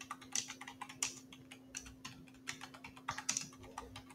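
Typing on a computer keyboard: quick, uneven runs of keystrokes with short pauses between words.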